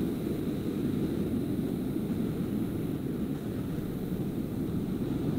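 Steady low rumbling background noise with no clear pitch, heard through a video call's microphone.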